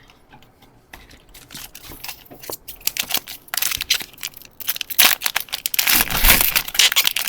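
Foil booster pack wrapper being crinkled and torn open: a run of sharp crackles that grows denser and louder about halfway through.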